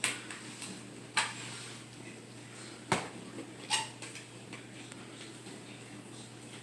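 Four separate sharp clicks and knocks from kitchen containers or utensils being handled to season chicken, over a low steady hum.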